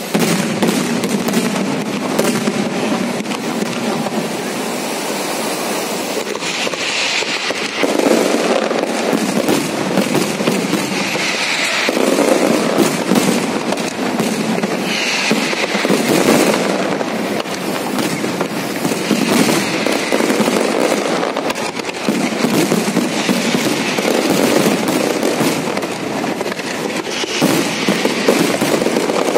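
A fireworks display at full barrage: dense, unbroken crackling and popping, with heavier volleys of bursts surging every few seconds.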